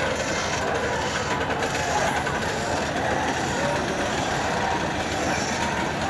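Indistinct chatter of many voices over a steady background rumble.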